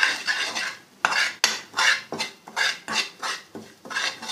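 A spoon scraping and stirring in a frying pan, about two strokes a second, as poppy seeds and ground spices are fried in ghee to cook out their rawness.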